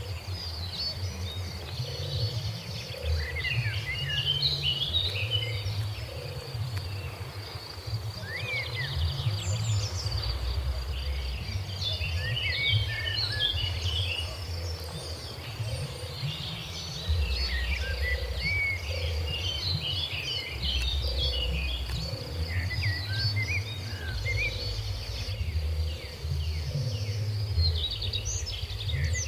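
Outdoor ambience: many small birds chirping throughout, over a steady high insect buzz and a low rumble.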